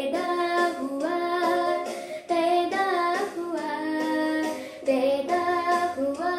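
A girl singing a Hindi Christmas carol solo, a slow melody of long held notes with short breaths between phrases.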